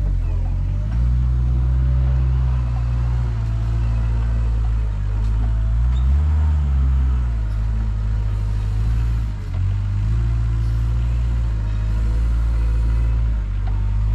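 Diesel farm machinery running steadily, from the tractor with the bale trailer and the compact wheel loader unloading round hay bales. The engine note swells briefly about six seconds in and dips near ten seconds.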